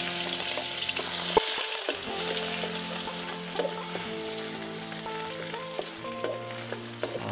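Shallots, garlic, lemongrass and chilli sizzling in hot oil in a metal wok, with a wooden spatula clicking and scraping against the pan as they are stirred; one sharper knock about a second and a half in.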